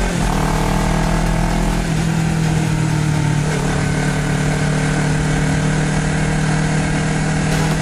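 Honda CBR250RR's parallel-twin engine running while riding, its pitch rising slightly over the first couple of seconds and changing about two seconds in, then holding steady, with wind rush over it.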